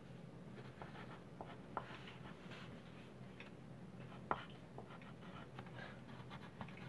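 Wooden pencils scratching faintly on paper as two people write, with a couple of light taps.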